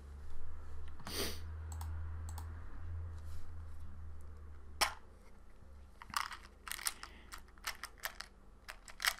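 Computer keyboard and mouse clicking at a desk: a dull knock about a second in, then irregular runs of sharp clicks, several a second, from about six seconds in.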